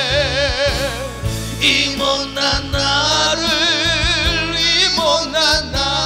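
A man singing a Korean gospel hymn into a handheld microphone, holding long notes with a wide vibrato, over instrumental accompaniment.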